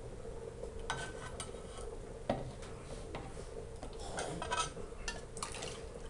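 Scattered light clinks and taps of a metal can against a blender jar while condensed milk is poured in, with one sharper knock about two seconds in and a quick run of taps near the end, over a faint steady hum.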